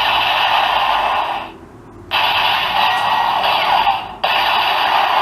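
Kamen Rider Build DX Full Bottle Buster toy weapon in blaster mode, playing its electronic attack sound effects through its small built-in speaker after a trigger press. It plays three blast effects in a row: the first stops about a second and a half in, and after a short gap two more follow back to back.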